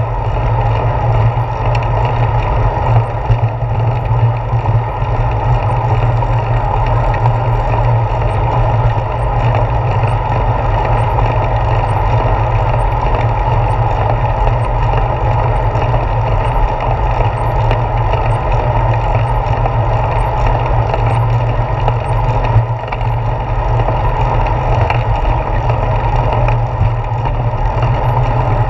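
Steady, loud wind rush and road rumble picked up by a handlebar-mounted GoPro Hero 4 on a moving bicycle, with no breaks or distinct events.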